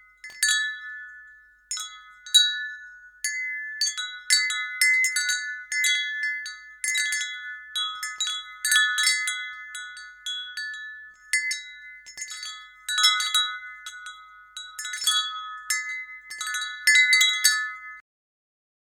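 Wind chime ringing, its few pitched tones struck at irregular intervals and overlapping as they sustain; the sound cuts off suddenly near the end.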